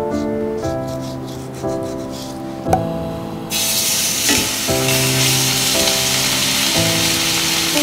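Raw steaks laid into a hot stainless steel frying pan with tongs, sizzling from about halfway in, over gentle background music. Before that, soft rubbing as seasoning is patted onto the raw steak.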